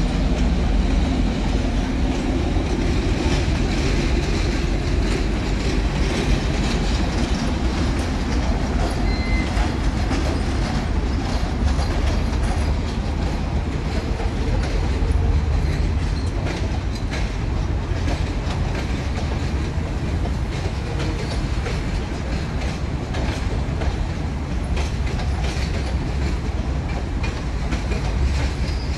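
Passenger coaches rolling slowly past on a shunting move, their wheels clicking over rail joints and points, over a steady low rumble.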